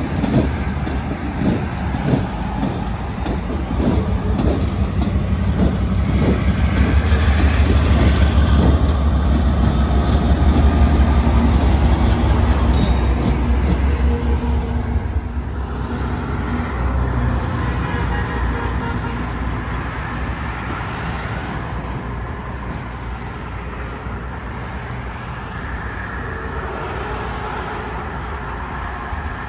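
Diesel locomotives rolling past close by: a deep engine rumble with wheels clacking over the rail joints, loudest between about 7 and 14 seconds in as a big Norfolk Southern GE unit goes by. The sound then fades to a lower, steadier rumble as the train moves off.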